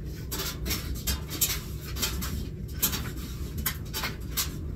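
Irregular rustles and light taps of clothes and hands being handled at an open front-loading washer, over a steady low hum.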